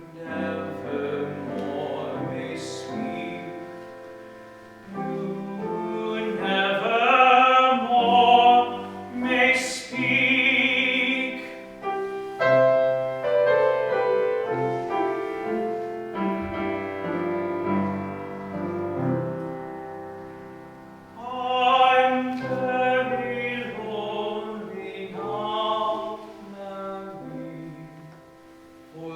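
Male classical singer performing a slow ballad in operatic style with piano accompaniment. Held notes carry a wide vibrato and swell loudest about a quarter of the way in and again in the last third.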